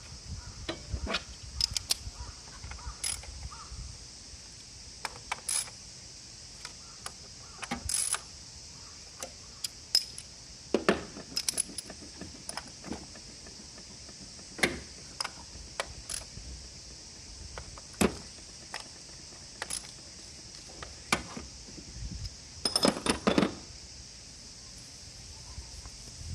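Sporadic metallic clicks and clinks of hand tools and parts being handled during spark plug replacement, with a quick run of clicks about seven-eighths of the way through. A steady high hiss lies behind.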